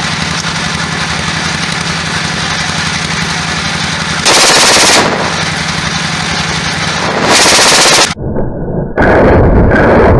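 Shots from a .30-bore pistol, each blast so loud that the recording is overloaded: one about four seconds in, a second about three seconds later, then more firing near the end. Under the first few seconds runs a steady low hum.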